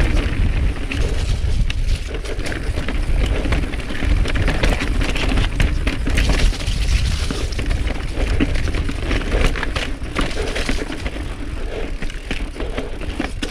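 Mountain bike riding down rock slabs: tyres rolling over rock, with many quick clicks and rattles from the bike over a steady low rumble.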